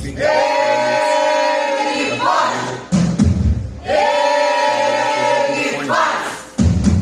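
A group singing long held choral notes. About every three and a half seconds the singing breaks for a heavy low thump and a rising vocal swell.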